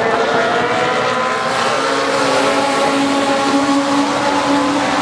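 A pack of Legends race cars with Yamaha motorcycle engines running at racing speed. Several engine notes overlap and slide slightly in pitch as the cars lap.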